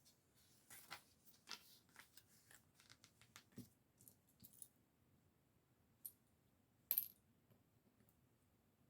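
Small plastic Lego pieces clicking as they are handled and pressed together: a run of light clicks and taps over the first few seconds, then a few sharper clicks, the loudest a double click about seven seconds in.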